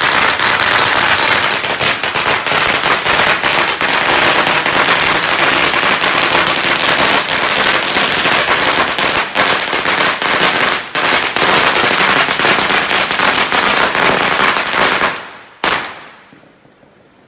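A long string of firecrackers going off in a dense, continuous rattle of rapid bangs. It stops suddenly about fifteen seconds in, with one last bang shortly after.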